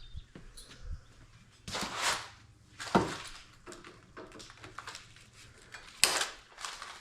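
Unpacking and handling noises: scraping and rustling, with a sharp knock about three seconds in and a louder one near the end.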